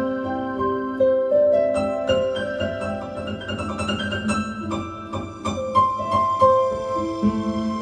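Solo piano playing sustained notes and chords, with a quicker flurry of notes in the middle.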